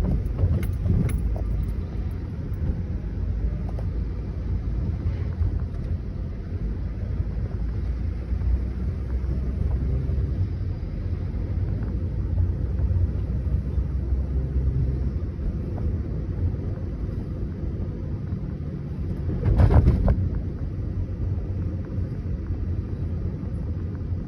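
Steady low rumble of motor vehicles on the road, with a brief louder rush about twenty seconds in.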